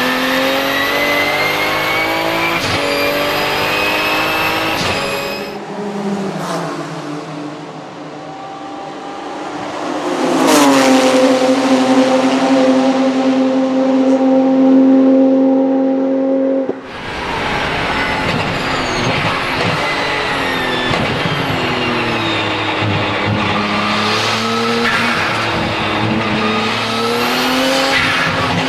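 Twin-turbo 3.9-litre flat-six of a Porsche 997 GT2 RSR racing car, heard onboard: it revs up through the gears with a high turbo whistle over it, then lifts off about five seconds in. From about ten seconds it holds one steady pitch for roughly six seconds, then cuts back into hard acceleration, its pitch rising through the gears again.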